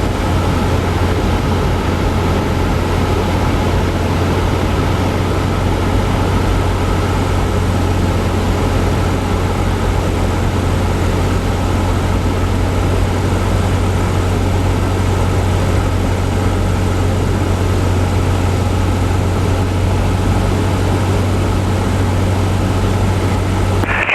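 Cessna 172's piston engine and propeller running at a steady drone during the approach to land.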